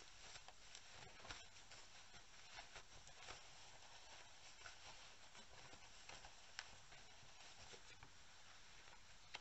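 Faint rustling and soft scattered ticks of cotton fabric and wadding being handled and pulled through a gap as a sewn panel is turned right side out.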